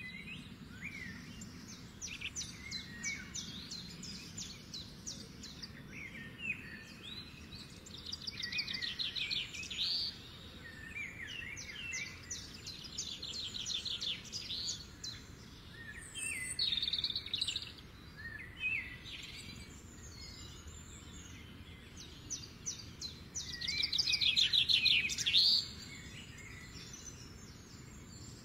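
Songbirds singing: repeated phrases of rapid high trills and chirps, some louder near the middle and end, over a faint steady low hum.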